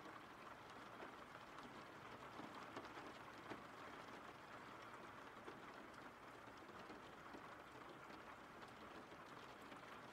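Faint, steady rain falling, with light drops ticking here and there.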